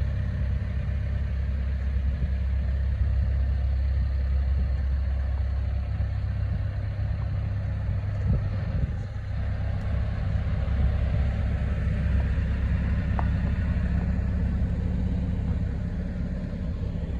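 Hyundai HX140LC 14-tonne excavator's diesel engine idling steadily.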